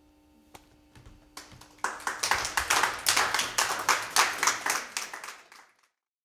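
Hand clapping, dense and irregular as from several people, starting about a second and a half in and fading out just before the end. A faint steady tone sits underneath and stops about two seconds in.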